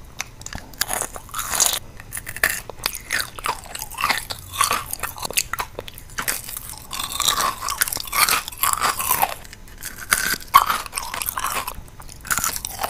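Crystal candy being bitten and chewed close to the microphone: crisp, irregular crunching and crackling of the candy's hard sugary shell, with wetter chewing sounds between the bites.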